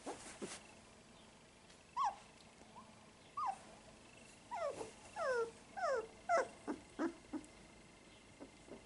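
Young Irish setter puppies whimpering in short, high squeaks that fall in pitch. Two come singly, then a quick run of about ten follows.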